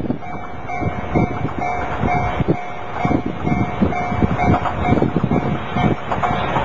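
A pair of DE10 diesel-hydraulic locomotives approaching from a distance, heard under gusty wind buffeting the microphone, with an electronic tone that rings on and off in a steady repeating rhythm, like a Japanese level-crossing warning bell.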